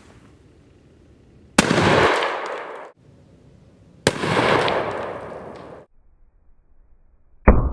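Two gunshots from a big-bore gun fired at a teddy-bear target, each a sharp crack followed by a long echoing rumble that is cut off abruptly. A third, duller bang comes right at the end.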